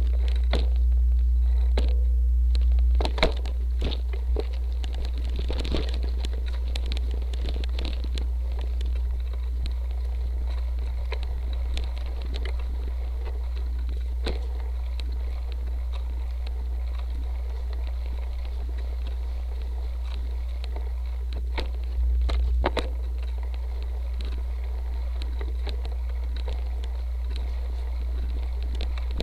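Ride noise picked up by a seatpost-mounted camera on a cyclocross bike rolling over dirt and grass trail: a steady low wind-and-vibration rumble with scattered knocks and rattles over bumps. The rumble is heaviest for the first three seconds and again briefly about 22 seconds in, with sharp knocks just after each.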